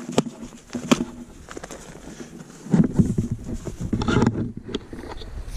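A few sharp clicks and knocks from hands working at a trail camera, then from about three seconds in a low rustling rumble of handling and wind on the microphone.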